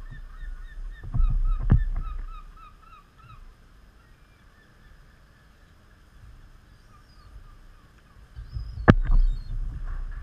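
Gulls calling, a quick run of short repeated notes about five a second for the first few seconds, then fainter scattered calls. Wind rumbles on the microphone, and a single sharp knock comes near the end.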